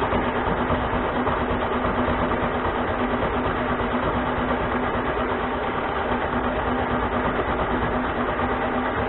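Harbor Freight mini lathe running steadily at about 500 RPM, its motor and gear train giving a constant hum with one strong steady tone, while a high-speed steel tool takes a light hand-fed cut.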